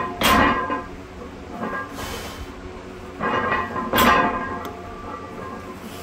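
Deadlift bar loaded with steel plates set down on the floor twice, about four seconds apart: each rep's touchdown is a heavy clank after a brief rattle of the plates, and the plates ring briefly after each one.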